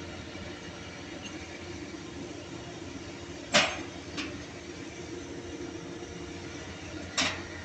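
Steady low machinery hum, broken by two sharp knocks about three and a half seconds apart, the first the loudest, with a lighter tap just after it.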